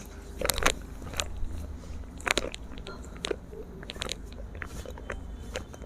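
Joints cracking under a chiropractic adjustment: a series of sharp pops and crunches, loudest about half a second in and again a little after two seconds.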